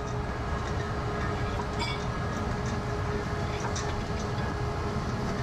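Steady low rumble with a constant faint hum under it, and a light click about two seconds in.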